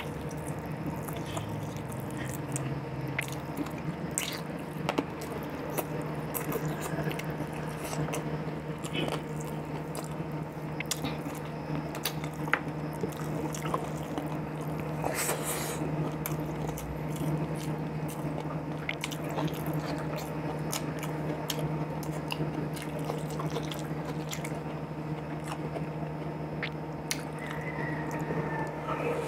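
Close-up eating sounds: a man chewing and biting into boiled chicken, with many small wet mouth clicks and smacks, over a steady low hum.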